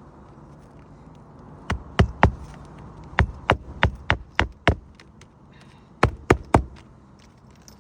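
Hand hammer striking sharply in three quick runs of blows, about three a second: three blows, then six, then three.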